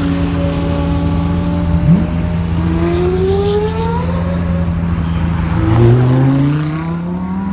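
Several supercar engines idling together with a steady drone. One engine blips its throttle about two seconds in, then engines rev up with rising pitch, once over a couple of seconds in the middle and again near the end.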